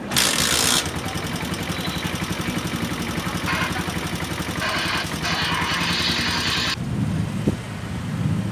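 Honda TMX 125's single-cylinder four-stroke engine running on its newly fitted battery-powered CDI ignition, firing at a fast, even beat after a brief loud burst at the very start. About two-thirds through, the sound changes abruptly to a lower, quieter hum.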